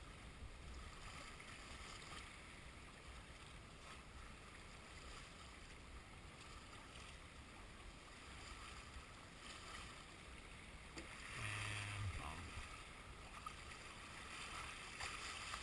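Faint, steady wash of water and wind around a small sailboat running on waves. A brief louder stretch with a low hum comes about three quarters of the way through.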